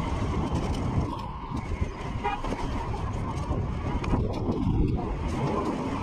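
City road traffic heard from a moving e-bike, a steady low rumble, with a short car horn toot about two seconds in.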